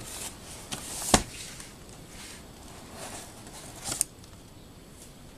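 A cardboard tablet box being opened by hand: rustling and scraping of card as the seal and lid are worked free, with a sharp snap about a second in and a smaller click near four seconds.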